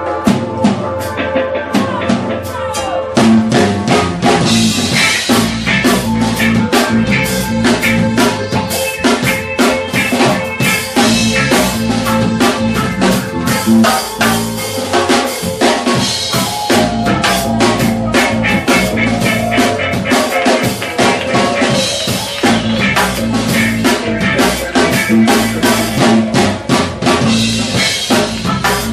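A live dub band plays an instrumental intro on drum kit and electric guitar. The full band comes in about three seconds in, and the sound is louder and fuller from there.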